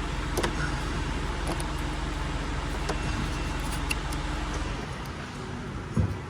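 A motor vehicle's engine running steadily with a low hum that drops away about five seconds in, over scattered light clicks.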